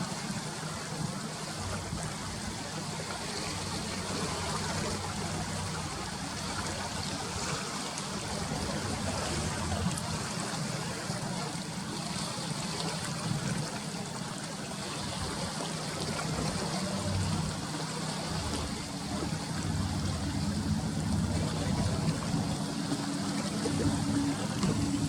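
Seawater washing and splashing against a harbour breakwater, over a low steady engine hum that grows a little louder in the last few seconds.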